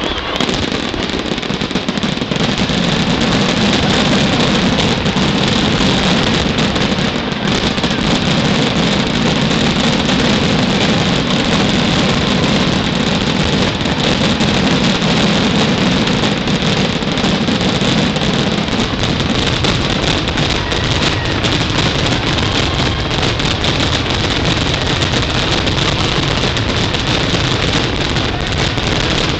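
Fireworks finale barrage: shells bursting so densely that the separate reports merge into one steady, loud rumble and crackle with no pauses.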